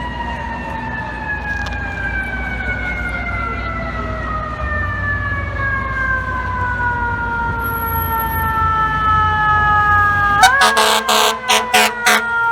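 Fire truck siren gliding slowly down in pitch, then pushed back up near the end, when a rapid string of short air horn blasts sounds over it. A low engine and traffic rumble runs underneath.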